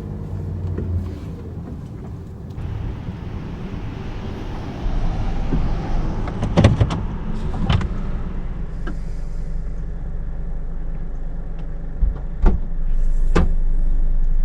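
2007 Jeep Compass's 2.4-litre four-cylinder engine running while driving, with road noise that swells about two and a half seconds in. Several sharp clicks or knocks break in around the middle and again near the end.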